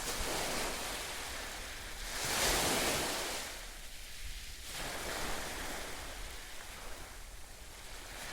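Sea waves washing in and drawing back in slow surges, the largest about two and a half seconds in.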